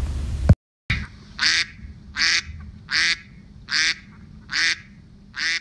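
A duck quacking six times in an even, steady rhythm, one short quack about every 0.8 seconds.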